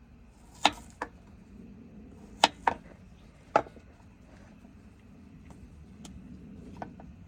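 Knife cutting a bamboo shoot against a cutting board: sharp, irregular knocks, about five in the first few seconds, then a few fainter ones.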